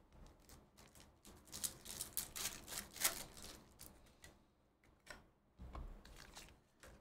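Trading cards being flipped through and handled: a quick run of light clicks and slides, loudest about two to three seconds in, then a few softer ones and a dull bump about six seconds in.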